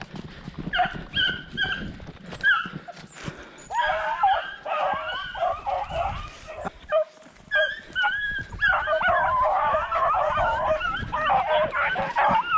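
Pack of beagles baying and yelping on a rabbit's scent trail. A few separate yelps at first, then from about four seconds in several dogs give tongue at once in an overlapping chorus, densest in the last few seconds.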